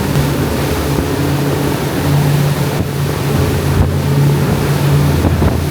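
A small fishing boat's engine running steadily under way, with a constant rush of wind and water over it.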